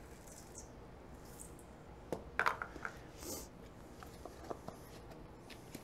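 Quick oats poured from a canister into a measuring cup over a stainless steel mixing bowl, a soft rustle, then a scatter of light clicks and taps of kitchenware at the bowl, the loudest about two and a half seconds in.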